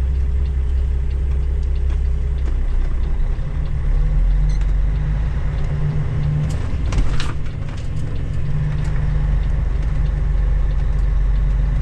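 Truck engine running at low speed, heard from inside the cab while the truck pulls into a parking lot. The engine note deepens about four seconds in, and there is a short hiss about seven seconds in.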